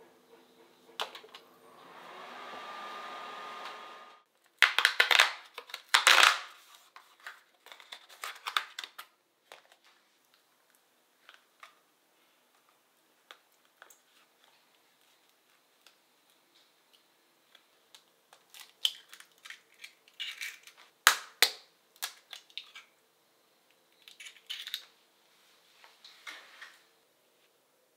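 A microwave oven hums for about two seconds after its touch panel is pressed, with a tone that rises and then holds, and stops suddenly. After that come scattered kitchen handling noises: loud rustling and knocks, and a silicone spatula scraping and tapping in a glass mixing bowl as cream cheese is added.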